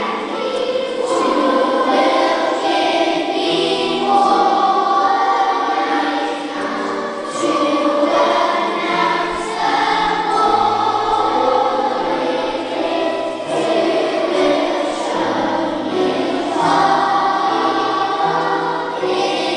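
Large primary-school choir singing together with a concert orchestra accompanying, held sung notes over a moving bass line.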